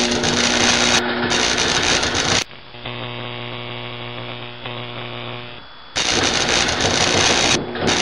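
Loud crackling noise that cuts off suddenly about two and a half seconds in, giving way to the steady electrical hum of a microwave oven running. About six seconds in, the loud crackling noise returns.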